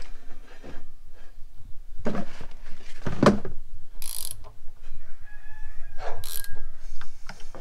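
Ratchet on the crank pulley bolt turning a Honda K24A4 engine over by hand, in several separate strokes with pawl clicks and puffs of air as the pistons move. The air is compression escaping past the intake valves: the engine is not seized and still holds some compression.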